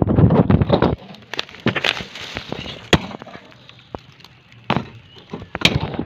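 Handling noise of a phone held close against tree bark: a loud rough rustle for about the first second, then scattered crackles and sharp knocks.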